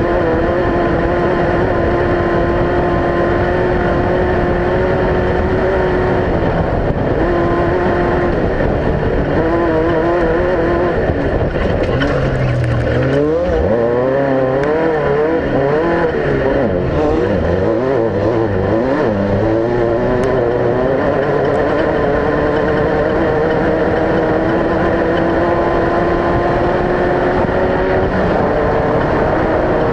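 Off-road race vehicle engine running hard at high revs. Its pitch holds steady, then rises and falls quickly for several seconds about halfway through, then settles steady again, over a loud rushing noise.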